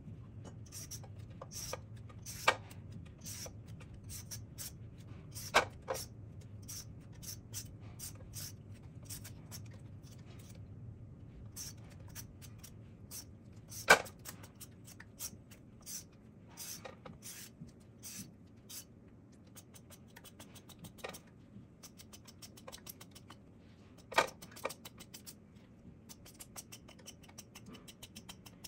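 A hand peeler scraping the skin off a large cucumber in quick, repeated strokes, with a few sharper knocks, the loudest about halfway through.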